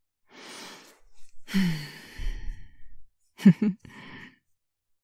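A woman's voice without words: a breath in, then a long sigh that falls in pitch, followed by two short hummed notes and a soft breath out.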